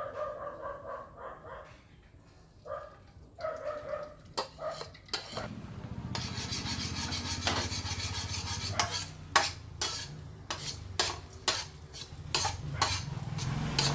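Beaten egg sizzling in hot cooking oil in a frying pan, the sizzle starting loudly about five seconds in. From about halfway on, a utensil clicks and scrapes against the pan as the egg is stirred.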